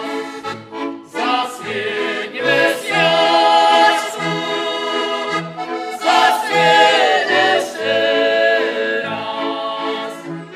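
Slovak folk band playing a song: button accordion, two violins and a bowed cello keeping a steady bass beat. A man's voice sings over the instruments.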